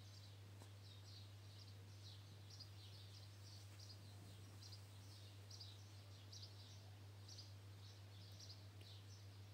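Near silence: a faint steady low hum, with faint, quick high-pitched chirps repeating irregularly over it.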